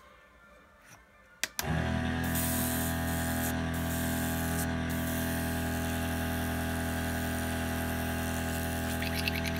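An airbrush air compressor switches on with a click about a second and a half in and then runs steadily with a motor hum, while air hisses from the airbrush, breaking off briefly twice.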